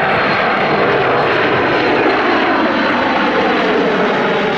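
Kawasaki C-1 transport's twin Pratt & Whitney JT8D turbofans at high power as it climbs away just after takeoff. It is a loud, steady jet noise whose pitch sinks slightly in the second half as it passes.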